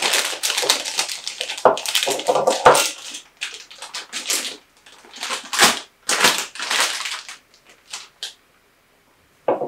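Clear plastic piping bag full of whipped cream crinkling and rustling as it is handled, squeezed and twisted. The crinkling is dense for the first three seconds, then comes in separate short bursts until it stops shortly before the end, with one short sharp knock just before the end.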